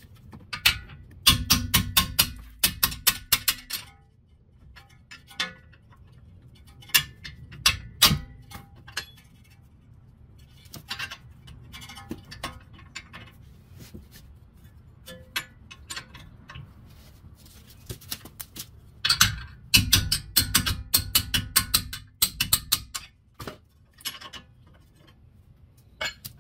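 Ratchet wrench clicking in fast, ringing runs as the front brake caliper bracket (pad support plate) bolts are loosened and spun out. There are two main bursts, one from about a second in and one about two-thirds of the way through, with scattered clicks between.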